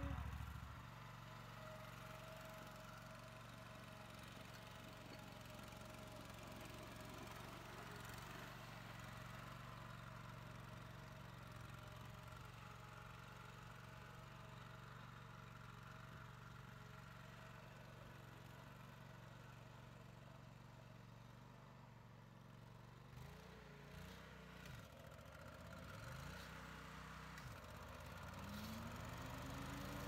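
Zero-turn riding mower's engine running steadily and fairly faint. Over the last several seconds its pitch wavers up and down, then rises near the end as the mower cuts into tall grass.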